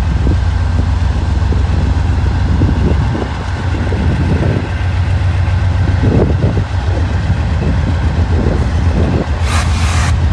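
Diesel freight locomotives working as a train slowly pulls away, a steady low engine drone with uneven rumble on top and a brief hiss near the end.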